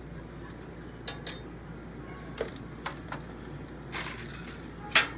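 Small metal clicks and clinks from handling a replacement camper door lock and its keys: scattered sharp ticks, two with a brief ring about a second in, a short rustle near four seconds, and a louder click near the end.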